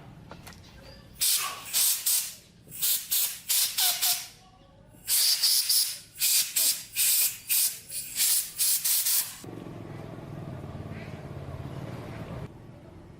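A pressurised spray hissing in a dozen or more short bursts, one of them longer, over about eight seconds. After that a fainter steady low hum.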